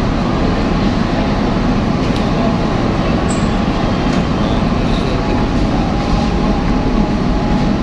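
Steady, loud engine rumble filling a ferry's enclosed steel car deck.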